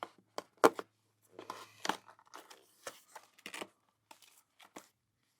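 Packaging being handled and rummaged through: a string of irregular sharp clicks and short rustling, crinkling noises, with one louder click under a second in.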